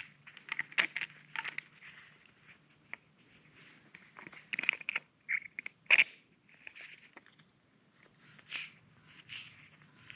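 Hands handling brake caliper parts on a workbench: irregular scrapes and rustling broken by sharp clicks and knocks, the loudest about six seconds in.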